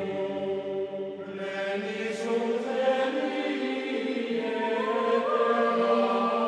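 Background music of sung choral chant: slow, long-held notes that shift pitch only occasionally.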